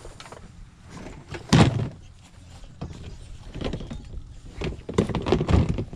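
Stored items and boxes being moved and handled: irregular knocks, thumps and rustling, with a heavy thump about a second and a half in and a cluster of bumps near the end.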